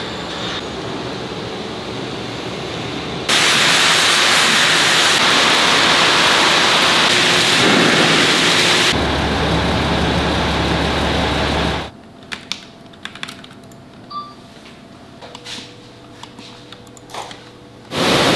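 Industrial site ambience: a loud, steady rushing noise, joined by a deep hum about halfway through. It drops suddenly to a quieter stretch of scattered clicks and knocks, and the loud factory noise returns at the very end.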